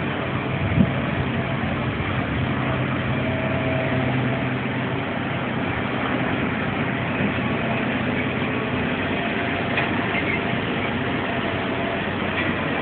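Engine running at a steady idle over a constant rush of outdoor noise; its low hum fades out about halfway through.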